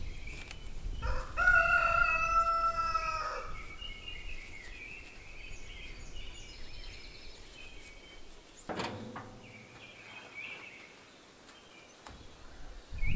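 A rooster crows once, a single steady call of about two seconds starting about a second in, with small birds chirping in the background. One sharp knock comes near nine seconds in.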